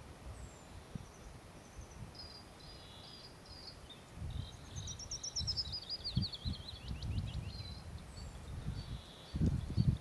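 A small songbird singing high, thin phrases, with a rapid run of notes falling in pitch in the middle. A low rumble comes in about four seconds in and swells near the end.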